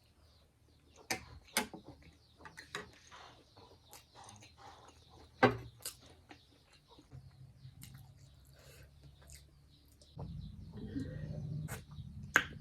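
Close-up eating sounds: scattered smacks and clicks of chewing and mouth noises, with birds chirping faintly in the background. A low hum sets in near the end.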